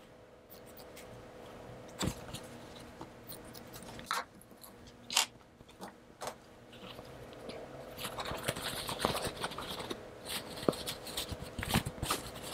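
A few separate sharp snips of scissors cutting through the corners of a sewn fabric pocket, then from about eight seconds in a busier crackly rustling and scraping of stiff fabric being handled and turned right side out.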